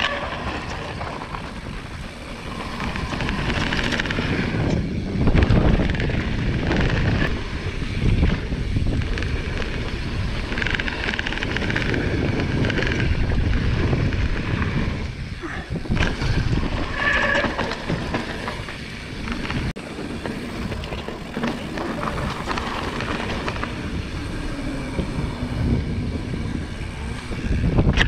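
Marin Alpine Trail XR full-suspension mountain bike rattling and clattering over a rough dirt trail, with tyre rumble and wind buffeting the microphone in uneven surges.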